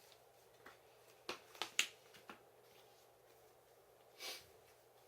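Trading cards being handled on a table: a quick cluster of sharp clicks and snaps starting about a second and a half in, then a short soft swish a couple of seconds later.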